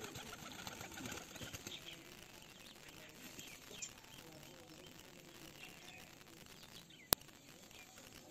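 Domestic pigeons flapping their wings in a flurry during the first couple of seconds, with faint chirping throughout. A single sharp click about seven seconds in is the loudest sound.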